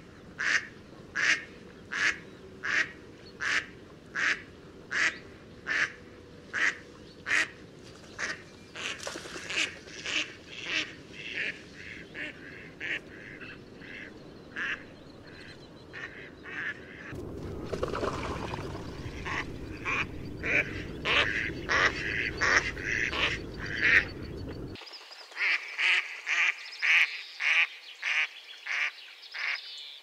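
Mallard ducks quacking in long series: evenly spaced quacks about one and a half a second for the first several seconds, then quicker runs of quacks. A rushing background noise comes in a little past halfway and cuts off suddenly later, while the quacking carries on.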